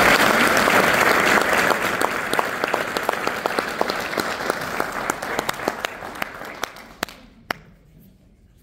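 Audience applauding, thinning to a few scattered claps and dying away about eight seconds in.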